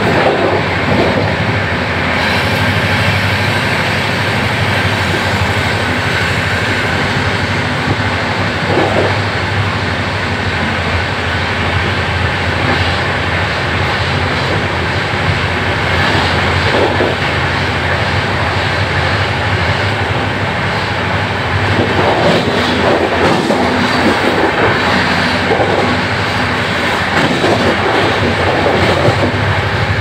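LHB passenger coach of a superfast express running at about 130 km/h, heard from inside by a door window: a loud, steady rush of wheels on the track mixed with wind.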